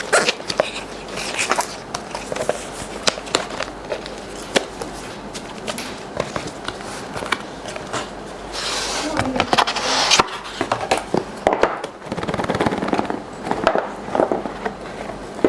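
A product box and its packaging being opened and handled: a string of sharp clicks, knocks and crackles, with a longer rustling, scraping stretch about nine seconds in.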